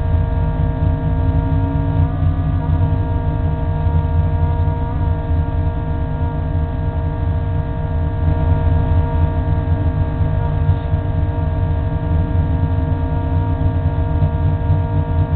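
Race car engine idling steadily, heard from inside the caged cabin as a low pulsing rumble with a steady hum of higher tones over it.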